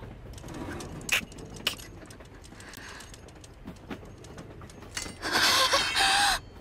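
Anime sound effects: a couple of sharp metallic clinks about a second in, then a young woman's heavy gasping breaths near the end.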